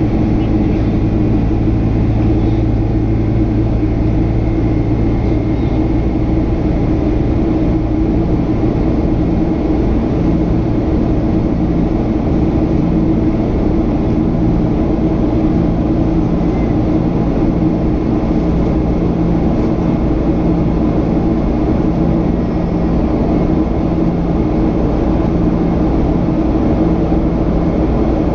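Steady cabin drone of a Boeing 767 in flight from its GE CF6 turbofan engines and the airflow, with a low hum and a lower tone that swells and fades every second or two.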